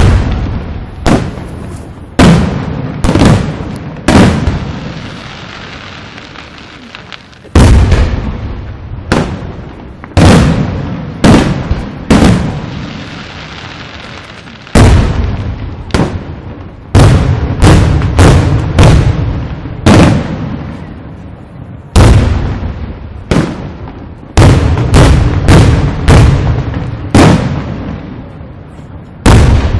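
Aerial firework shells bursting overhead: about thirty loud booms at irregular intervals, some in quick clusters, each followed by a rumbling echo that dies away. The bangs pause for a few seconds twice.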